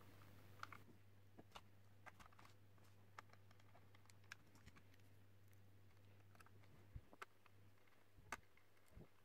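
Faint, scattered clicks and taps of a small screwdriver and plastic parts as screws are driven into a Nikon SB-900 speedlight's housing, over a low steady hum.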